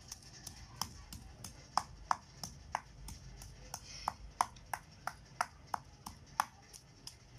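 Steady rhythmic knocking in kitchen food preparation, about three strikes a second, each with a brief ring, as ingredients are broken down for a ginger-garlic curry paste.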